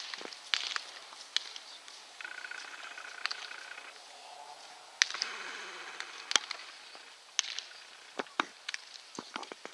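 Baseballs popping into leather gloves during a game of catch: sharp smacks every second or so, the loudest about five seconds in and again a second and a half later. A high chattering sound comes and goes in short spells behind them.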